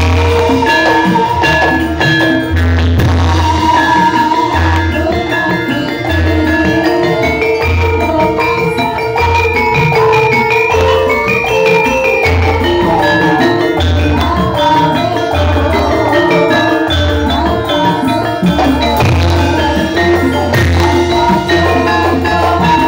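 Javanese gamelan music: a melody played on struck metal keys over a steady, repeating low drum beat.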